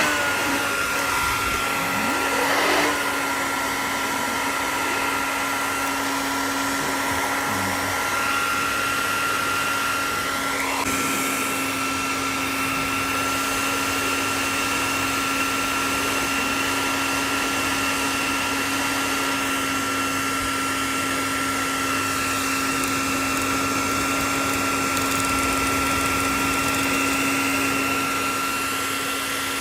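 Hot-air blower running steadily with a constant fan whine, heating the GoPro's screen to soften the adhesive that holds it in the frame.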